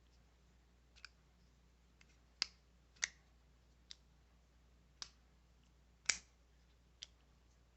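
Sharp clicks of a Camillus folding knife being handled, its blade opened and closed, roughly one click a second, the loudest a little after six seconds in.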